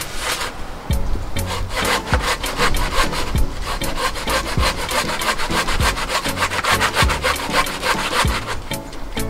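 Hand saw cutting across the top of an upright log stump in rapid back-and-forth strokes, trimming the chopping block's top level. The strokes ease off near the end.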